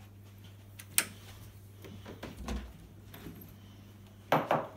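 Lever door handle pressed and door latch clicking as a door is opened, two sharp clicks near the end, after a single sharp click about a second in.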